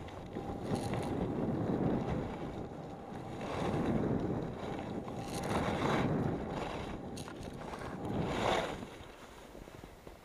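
Skis scraping over hard-packed snow moguls, with wind rushing on a helmet-mounted camera's microphone. The rushing noise swells about every two seconds, with each turn through the bumps, and drops away near the end.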